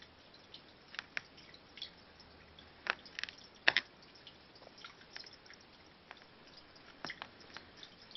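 A cat licking another cat's fur as it grooms it: irregular short wet clicks and smacks of the tongue, the loudest few a little past the middle.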